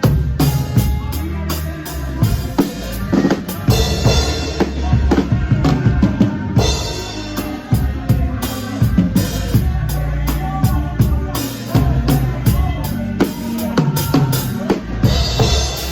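Live band music driven by a drum kit: a steady beat of bass drum and snare over a bass line, with cymbal crashes a few times.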